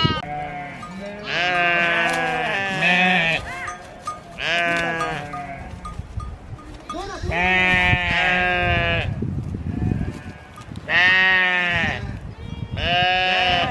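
A flock of sheep bleating: about five long, quavering bleats from several animals, some overlapping, with short pauses between.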